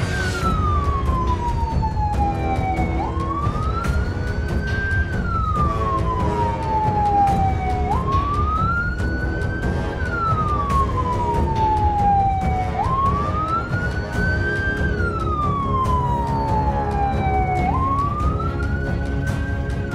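Emergency vehicle siren wailing in a slow cycle: every five seconds or so the pitch jumps up, climbs for a couple of seconds, then falls away, over background music.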